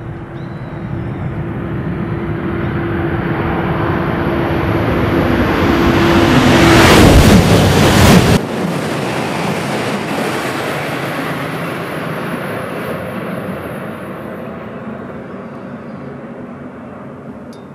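GENBI Shinkansen, an E3-series high-speed train, passing at speed beneath the overpass: a rush of wheel and air noise builds steadily to a loud peak as the nose goes under. It cuts off sharply just after the peak, then fades slowly as the train recedes. A steady hum sounds under the approach until just before the peak.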